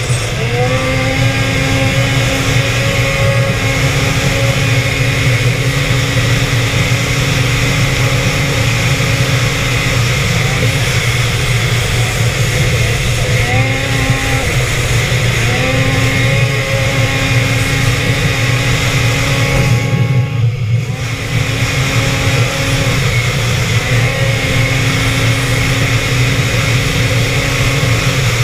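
Two-stroke snowmobile engine running at speed, its pitch rising and then holding steady at high revs. The throttle eases off and opens again a few times, around ten, fourteen and twenty seconds in.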